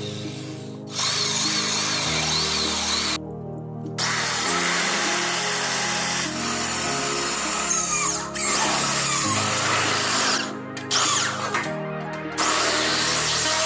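A power tool running in spells, stopping briefly several times and starting again, over background music.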